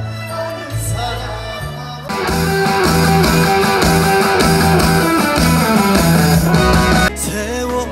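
Live trot band music. A male voice sings wavering, held notes over the band at first, then a louder instrumental break with a steady beat comes in about two seconds in. Singing returns near the end.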